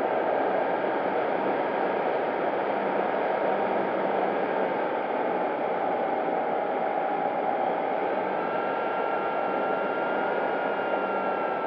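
Steady wind rush on the onboard camera of an electric RC P-40B warbird in flight, with the faint whine of its electric motor and propeller underneath; a second, higher whine joins about eight seconds in.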